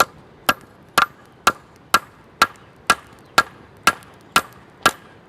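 Hand hammer striking a hot mild-steel rebar blank on an anvil: a steady run of sharp blows, about two a second, forging the knife's tip at an angle.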